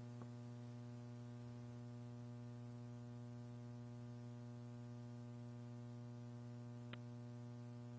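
Steady electrical hum with a stack of overtones on the launch countdown audio line, with a faint hiss and a single short click about seven seconds in.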